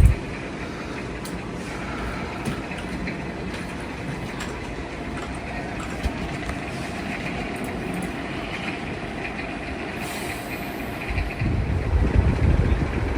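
Minka Aire Supra ceiling fan running on high, a steady whoosh of moving air with a faint motor hum, at a speed slower than expected, which the owner suspects is a drifting capacitor. From about eleven seconds in, the fan's draft buffets the microphone with low rumbling gusts.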